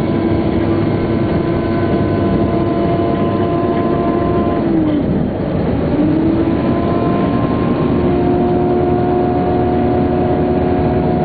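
Scania K420 coach engine running with a steady whine over its drone; about five seconds in the pitch drops briefly and then climbs back and holds steady again.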